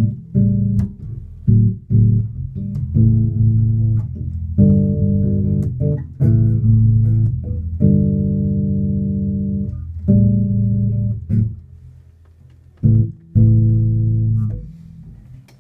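Yamaha TRBX604FM four-string electric bass played fingerstyle through a Markbass amp and cabinet: a line of plucked notes, some held for a second or two, with sharp plucking clicks between them. Near the end the last note fades away.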